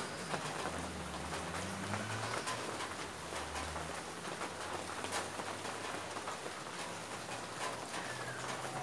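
Rain falling, an even patter of drops with a low hum underneath.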